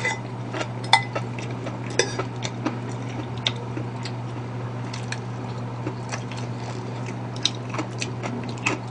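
Metal spoon clinking and scraping against a ceramic bowl as rice is mixed and scooped, in irregular clinks about once a second, over a steady low hum.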